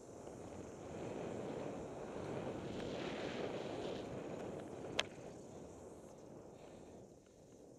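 Mountain bike riding fast down a dirt forest trail on a helmet or bar camera: wind rushing over the microphone and tyres running on dirt, growing louder in the first second and fading over the last few seconds. There is one sharp click about five seconds in.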